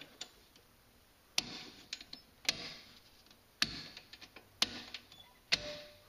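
Circuit breakers in a home electrical panel being snapped on by hand: five sharp clicks about a second apart.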